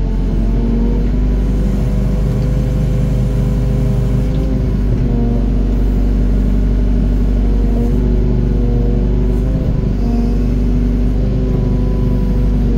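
Doosan DX55 mini excavator's diesel engine running steadily under work, its pitch sagging slightly and recovering a few times as the hydraulics take load while digging and dumping soil.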